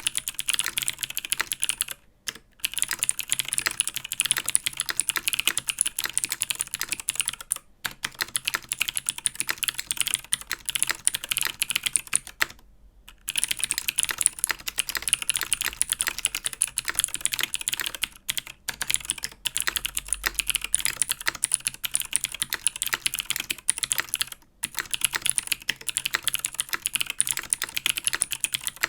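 Fast typing on a mechanical keyboard with clicky Helix Skylar switches: dense runs of sharp key clicks, broken by a few short pauses.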